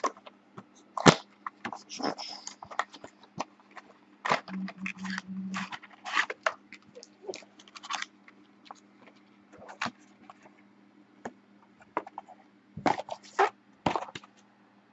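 A box of Panini Intrigue basketball cards being opened and handled: irregular crackles, clicks and scrapes of cardboard and plastic packaging, with quiet gaps between them. A brief low buzz in three short pulses comes about four and a half seconds in.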